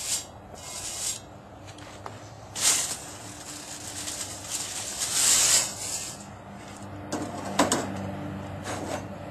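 Whisk broom bristles sweeping briquette ash off a Dutch oven lid in several hissing strokes, one of them longer, in the middle. A few sharp knocks follow near the end.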